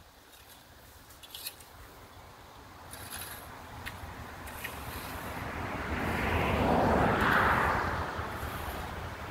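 A motor vehicle drawing closer, its rumble and hiss swelling steadily to a peak about seven seconds in, then easing slightly.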